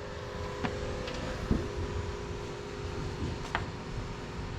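Pellet stove running: a steady motor hum from its blowers, with a few light clicks and a dull thump about one and a half seconds in.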